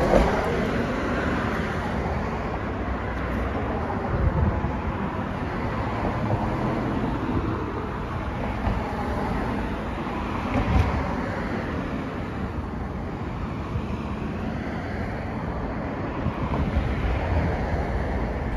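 Steady outdoor street noise with road traffic.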